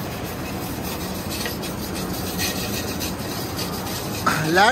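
Wire brush scrubbing a freshly TIG-welded steel pipe-to-flange weld in steady, quick back-and-forth strokes, cleaning the finished joint.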